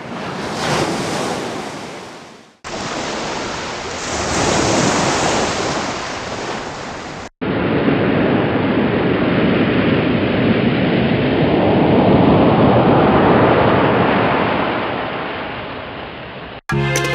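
Three rushing-noise sound effects one after another, each starting and stopping abruptly: a short swell that fades out about two and a half seconds in, a steadier stretch that ends about seven seconds in, then a long swell that rises and slowly dies away.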